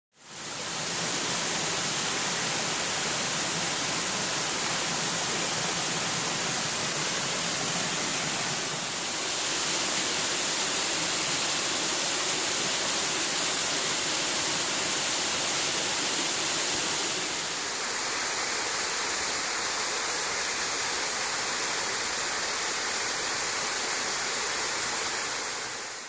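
Water cascading down a multi-drop waterfall over rock ledges: a steady rushing hiss that fades in, shifts slightly in tone twice, and fades out at the end.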